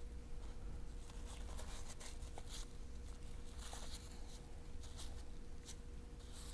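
Folded Kimwipe lab tissue wiped in one-direction strokes across a glass optical window damp with lens cleaner: faint, soft swishes about once a second.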